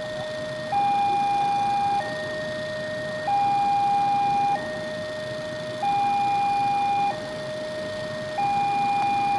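Railway level-crossing warning alarm sounding a steady electronic two-tone hi-lo signal. A higher, louder tone and a lower tone alternate, each held for a little over a second, warning that a train is approaching and the barrier is closing.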